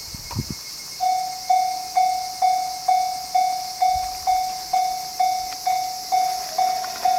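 Japanese railway level crossing warning alarm starting up about a second in, then dinging steadily about twice a second: the signal that a train is approaching.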